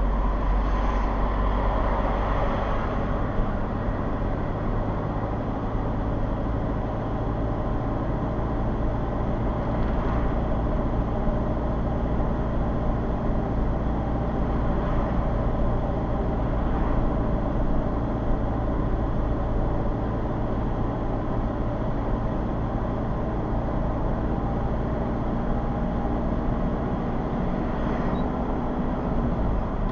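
Steady engine and road noise of a car driving, picked up inside the cabin by a dashcam.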